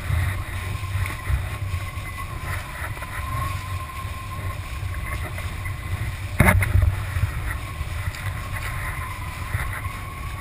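Kiteboard planing over sea chop: rushing water and wind buffeting the camera, with a steady thin whistle underneath. A sharp slap about six and a half seconds in.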